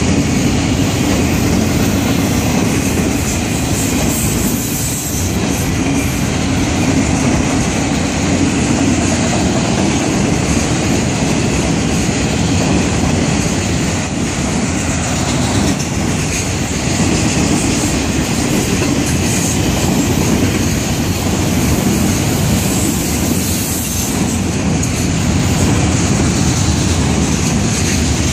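Florida East Coast Railway freight train's autorack cars rolling past at steady speed: continuous wheel-on-rail rumble and clatter, even in level throughout.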